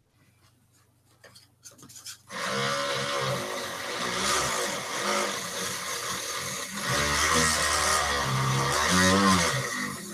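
Dremel rotary tool starting up about two seconds in and sanding a cork float, a steady motor whine with a grinding rasp, its pitch wavering up and down as it works.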